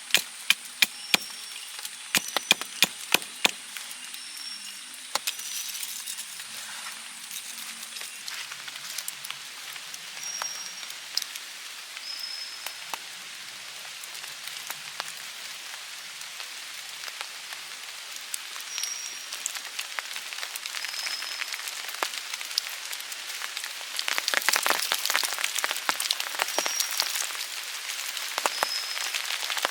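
Rain and water drops pattering in a wet forest after rain, a steady hiss with many sharp drop hits, some loud ones in the first few seconds and a heavier spell near the end. Short high chirps recur every few seconds.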